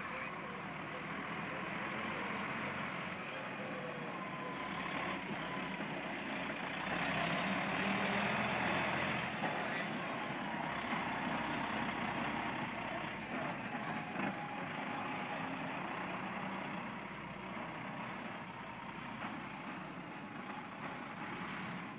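DAF XF 105 truck tractor unit's diesel engine running at low speed as the truck manoeuvres slowly, growing louder around the middle as it passes close.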